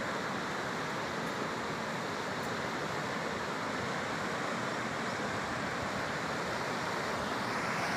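Steady rushing of a fast mountain river running over rocks and rapids.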